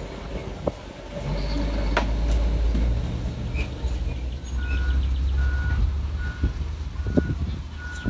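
Heavy earthmoving machine's engine running with a deep rumble that grows louder about a second in. Its reversing alarm starts beeping about halfway through, a steady single-pitched beep repeating a little faster than once a second.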